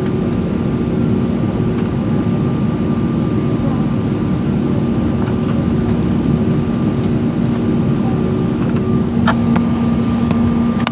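Airliner cabin noise heard from a window seat as the plane rolls along the runway after landing: the engines and airflow run steadily, with a steady hum in them. A couple of sharp clicks come near the end.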